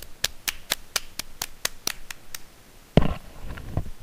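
Hand claps in a steady rhythm, about four a second, fading out after about two and a half seconds. A sudden louder thump follows about three seconds in.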